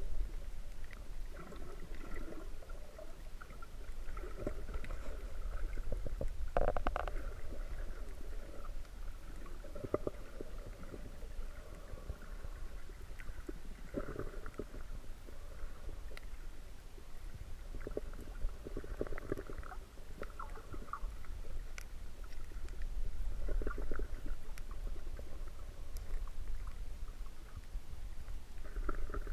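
Muffled underwater sound picked up by a camera in a waterproof housing: a steady low rumble of moving water with irregular gurgling swells every few seconds and a few faint clicks.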